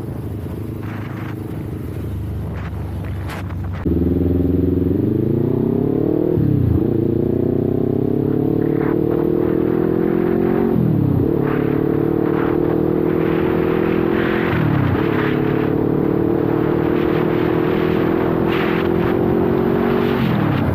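Kawasaki Ninja 400's parallel-twin engine running steadily, then opened up hard about four seconds in. Its revs climb and fall back at four upshifts through the gears, with wind buffeting the action camera's built-in microphone.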